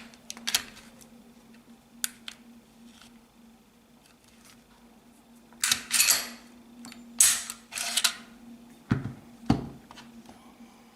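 Clicks, rattles and scrapes of a Smith & Wesson M&P pistol frame being handled as its takedown lever is worked out, with two knocks about nine seconds in. A faint steady hum runs underneath.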